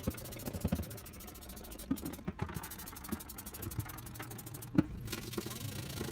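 Light scraping and scattered small knocks from wiping and scrubbing the front of a microwave, with one sharp click about five seconds in.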